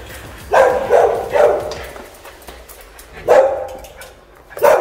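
Small dog barking: a quick run of three barks about half a second apart, then one more bark about three seconds in and another near the end.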